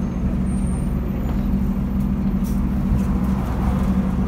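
Inside a Scania East Lancs Olympus double-decker bus, the engine running with a steady low drone and hum, with a few faint clicks and rattles from the body.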